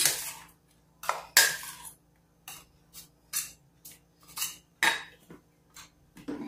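Metal spoon clinking and scraping against a stainless steel bowl and a small plastic cup as chopped pineapple is spooned into the cup: a string of short, irregular clinks and scrapes, with one longer scrape a little after a second in.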